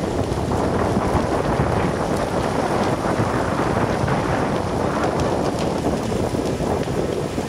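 Trees burning in a wildfire: a steady rush of flames with occasional crackles, and wind buffeting the microphone.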